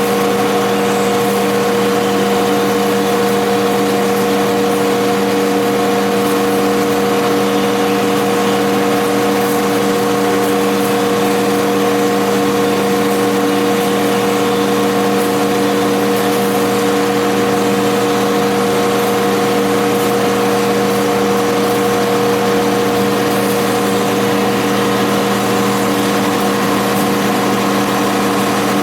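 Steady running hum of a CNC deep hole drilling machine, with several fixed tones over a hiss and no change in pitch or level.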